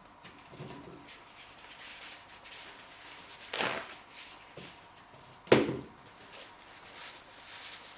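A person breathing hard against the burn of Carolina Reaper chilli, with two short, loud sharp breaths, the louder one about five and a half seconds in.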